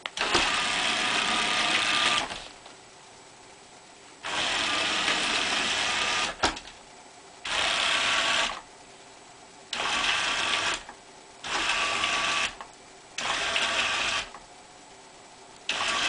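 Roomba's drive-wheel gear motors running in six short bursts of one to two seconds each, starting and stopping as infrared remote commands drive the robot forward, backward and through turns.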